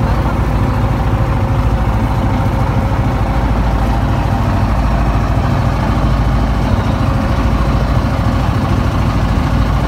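Engine of a small wooden motorboat running steadily while under way, loud and even throughout.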